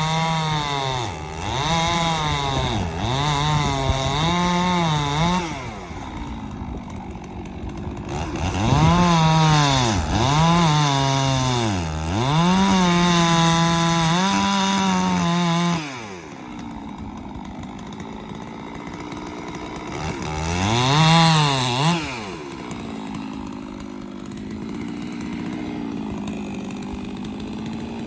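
Chainsaw cutting a dead tree, the engine at high revs dipping in pitch under load and recovering again and again in two long cutting spells, dropping to a lower, steadier run about six and sixteen seconds in. About twenty-one seconds in it revs up briefly once more, then settles to a low, steady run.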